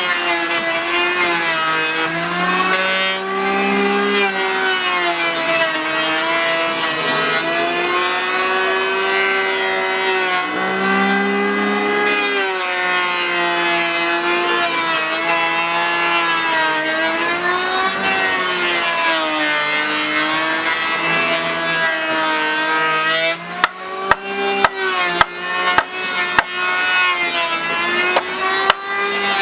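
Electric power tool motor running hard on wood, its hum sagging and rising in pitch as the load changes. About 23 seconds in it gives way to a quick series of sharp wooden knocks.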